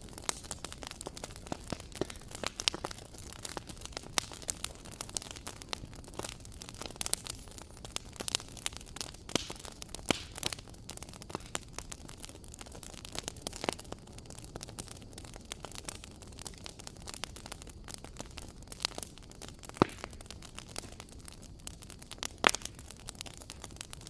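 Fireplace fire crackling: a steady soft hiss under irregular sharp pops and snaps, two louder pops in the last few seconds.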